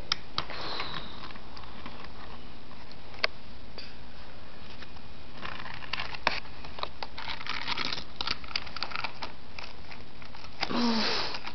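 Small plastic clicks, knocks and scrapes of a toy car being handled and rolled on a plastic toy playset, over a steady hiss, with a busy run of knocks and rattles from about five and a half to eight and a half seconds in.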